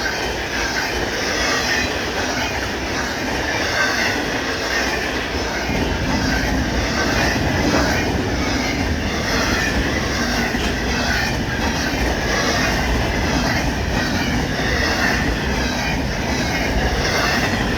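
Intermodal freight train rolling past, a steady rumble of wheels on rail with a regular clicking rhythm; the low rumble grows about six seconds in.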